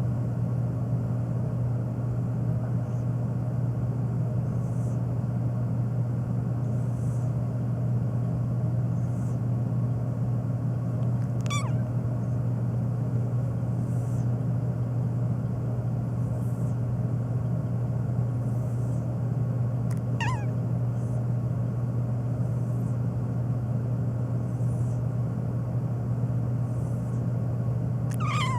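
A domestic cat meows three times, each meow short and falling in pitch, roughly ten seconds apart. A loud steady low hum runs underneath throughout.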